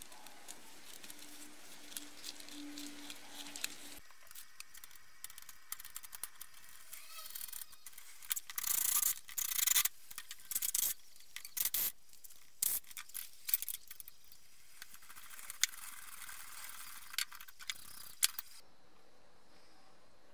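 Hand tools working on a car's coil-spring strut and its spring compressors: a run of metal scrapes, rasps and clicks, with several louder rasping bursts in the middle.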